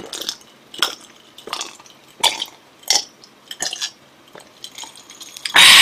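A person gulping down a drink from a glass, with a swallow about every two-thirds of a second, about seven in all. Near the end comes a short, loud, breathy burst.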